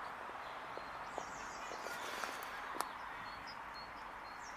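Quiet outdoor ambience with a steady hiss and a few faint clicks, and a small songbird singing a quick run of repeated high notes about a second in and again near the end.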